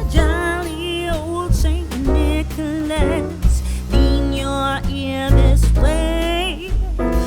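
Background song: a sung melody with vibrato over bass and a steady beat.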